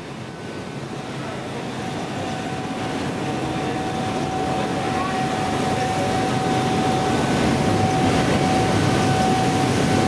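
Dense, steady industrial noise from a Fuchs 45-tonne UHP electric arc furnace just after a scrap charge, with a steady high whine through it. The noise grows louder throughout.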